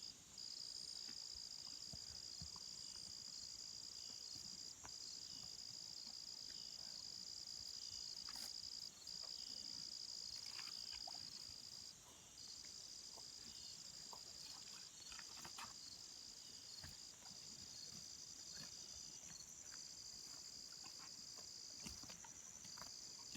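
Steady chorus of insects such as crickets, a continuous high-pitched trill that drops out briefly every few seconds, with a few faint scattered ticks.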